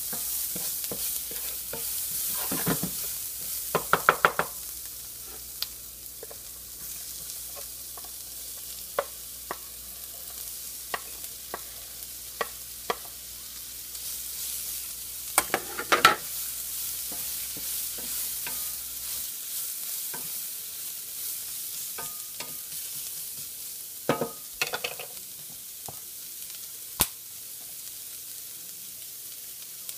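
Onions and vegetables sizzling in oil in a nonstick frying pan, a steady hiss, with a wooden spatula scraping and tapping against the pan in a few short bursts of stirring. About halfway through, shredded cabbage and peppers are pushed in from a plate.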